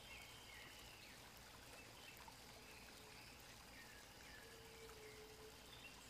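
Near silence: faint outdoor ambience with scattered faint bird chirps, and a low steady note lasting about a second, starting about four and a half seconds in.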